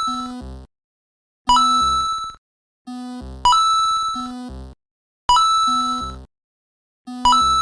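Synthesized cartoon sound effect: a bright electronic ding followed by a short low buzzy tone, repeating about every two seconds with short silences between.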